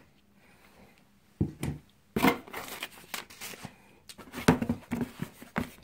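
Handling noises from sneakers being turned over and moved about: a few sharp knocks and short rustles, starting about a second and a half in.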